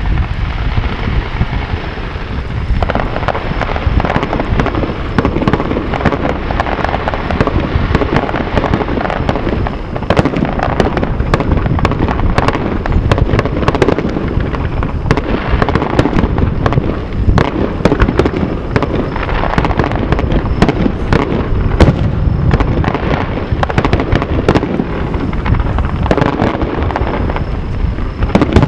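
Aerial firework shells bursting in a dense, continuous barrage: many sharp bangs in quick succession over an unbroken din.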